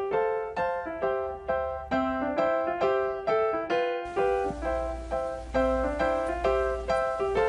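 Background music: a gentle, evenly paced piano or electric-piano melody, about two to three notes a second. A low hum joins it about four seconds in.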